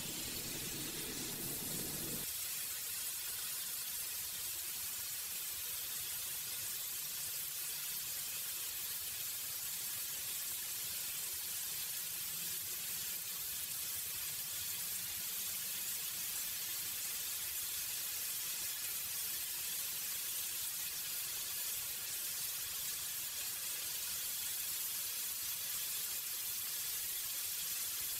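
Lamb chops sizzling steadily on a ridged griddle pan, searing on their second side after being turned.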